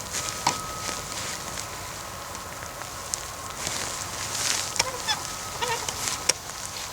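Dry leaf litter crackling and crunching underfoot. A bird gives a few short calls about five seconds in.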